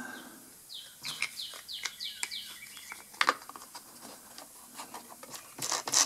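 Hard plastic clicks and knocks as the air filter and its cover are fitted back onto a Husqvarna 128LD string trimmer, with the loudest click about three seconds in and a cluster of clicks near the end. A run of about five short, high, falling chirps sounds about a second in.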